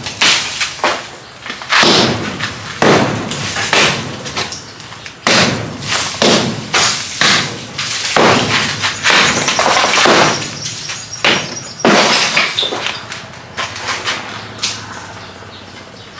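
A hammer struck over and over against a plastered cement wall, knocking chunks off, with crumbling and falling debris after the blows. The blows come irregularly, about once a second, and grow fewer near the end.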